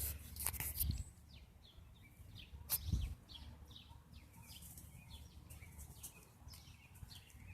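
A bird calling in a steady train of short, faint chirps that fall in pitch, about two a second. A dull thump about three seconds in, with a few clicks at the start.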